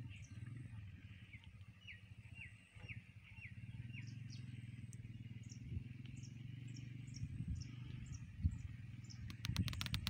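Small birds chirping: a run of about five short falling notes, then a string of higher, thinner chirps, over a low steady rumble. A rapid burst of clicks comes near the end.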